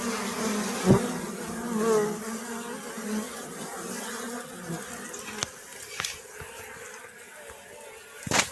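Bees buzzing: a steady hum of wings whose pitch wavers and swells as individual bees pass close. A few sharp ticks are scattered through it, the loudest near the end.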